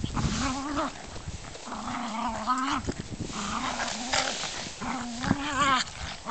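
German Spitz (Mittelspitz) dogs play-fighting, with a run of four drawn-out, wavering growls.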